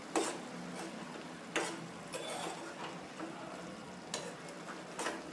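Metal spatula stirring chicken keema in a non-stick pan over a steady sizzle, knocking and scraping against the pan about five times.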